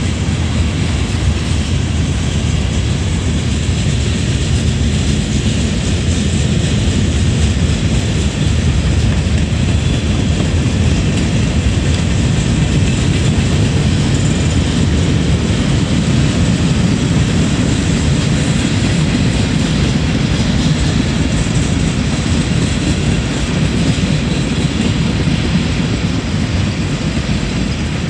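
Freight train cars rolling past: loaded steel-coil cars, a covered hopper and tank cars, their steel wheels on the rails making a steady, low rumble that does not let up.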